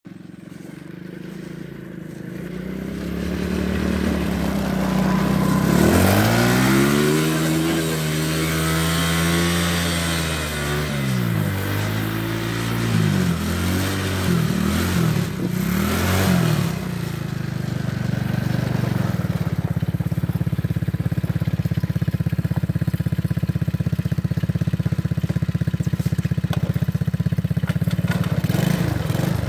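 A small quad bike's engine, getting louder over the first few seconds as it approaches, then revving up and down several times as it is ridden on snow on summer tyres that spin and slip. Later it settles into a steady run close by.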